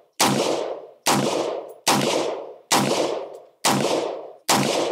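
Six rifle shots from a 7.5-inch-barrel AR-15 pistol firing 5.56 rounds, fired slowly at about one a second, each a sharp crack with a long trailing echo.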